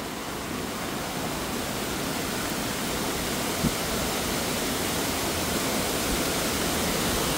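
Waterfall on a rain-swollen, flooded river rushing steadily, growing gradually louder.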